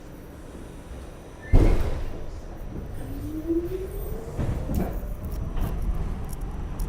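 The sliding doors of an R46 subway car shut with a sudden loud thud about a second and a half in. The train then starts to pull away: a rising whine from its motors over the rumble of the wheels, with a few sharp clunks.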